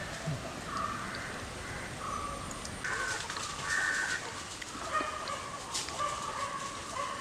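Chickens clucking and calling, a string of short separate notes.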